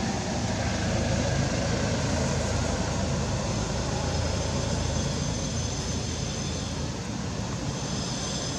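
Steady low rumbling background noise with no distinct events, with a faint high steady whine joining near the end.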